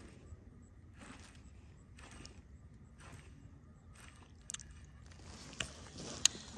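Fishing rod and reel handled in a kayak: faint rustles about once a second, then a steadier hiss with a few sharp clicks near the end, the loudest about six seconds in.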